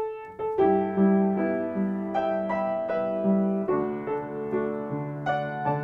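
Piano playing the introduction to a children's action song: a simple tune over struck chords, starting abruptly at the beginning.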